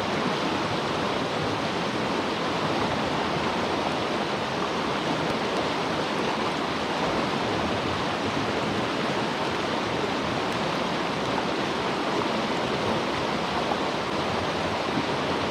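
Steady rushing of water, an even noise without breaks or clicks.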